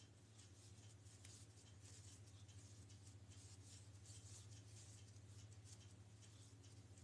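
Faint, irregular scratching and rustling of yarn pulled over a crochet hook as double crochet stitches are worked, over a low steady hum.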